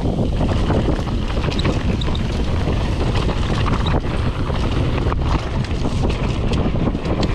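Wind rushing over a GoPro's microphone during a fast mountain-bike descent, with the tyres rolling over dirt and a steady stream of short rattles and knocks from the full-suspension bike hitting bumps.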